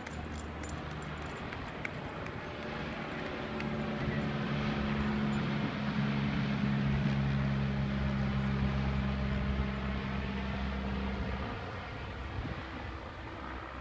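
Light single-engine propeller plane droning as it flies past overhead, the engine note growing louder to a peak around the middle and fading away after about eleven seconds.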